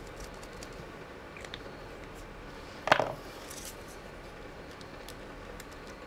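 Quiet paper handling: faint rustles and small clicks as a cut-out paper bird is picked up and laid on a square of book-page card, over a low steady room hiss. One short, sharp sound about three seconds in is the loudest thing.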